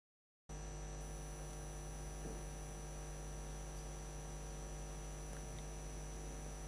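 Steady electrical mains hum with a stack of even overtones and faint hiss. It cuts in abruptly about half a second in, after dead silence.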